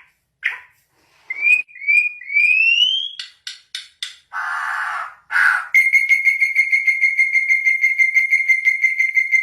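A bird whistling: a few rising whistled notes, some sharp clicks and a brief hissing burst, then from about six seconds in one long, steady whistle trilled several times a second.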